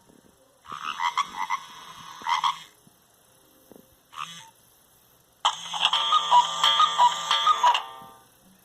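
Nokia 1110 mobile phone playing its built-in monophonic ringtones through its small, buzzy speaker. The tones come in short snatches that start and stop abruptly: a phrase of about two seconds, a brief blip, then about two and a half seconds of quick repeated beeping notes.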